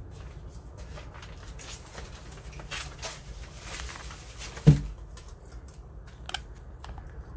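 Budgies moving around their cage and toys: scattered light clicks and scratchy rustling, with one loud thump a little over halfway through.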